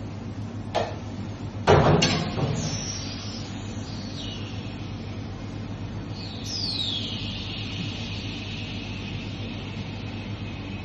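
Steady low machine hum of commercial kitchen ventilation. A click comes just under a second in, then a loud metallic clatter about two seconds in. Later there are a few faint high tones that slide down in pitch.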